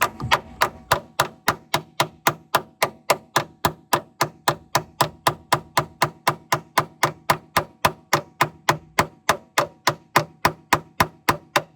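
Steady hammering, metal on metal, about three strikes a second, each blow ringing briefly: a hammer driving a tool against a badly corroded door hinge pin to knock it out of the hinge. The blows stop suddenly near the end.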